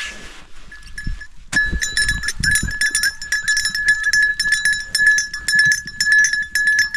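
A small bell on one of the goats ringing over and over in quick jangling strikes as the goats move about, starting about a second and a half in, with a few low thumps from the animals early on.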